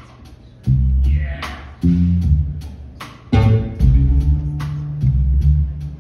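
Live electric bass and drum kit jamming: deep bass phrases of about a second each, loud and punchy, over cymbal or hi-hat strokes keeping a steady beat.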